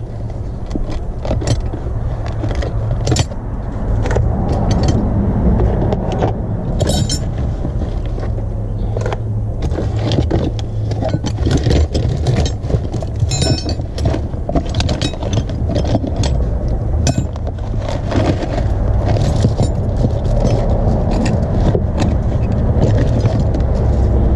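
Metal hand tools clinking and rattling as a tool bag is rummaged through, with sockets, wrenches and a ratchet knocking together in many short, irregular clinks. A steady low rumble runs underneath.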